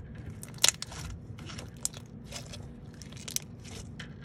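Slime being squished and poked by hand, giving irregular crackling clicks and pops, the loudest about two-thirds of a second in.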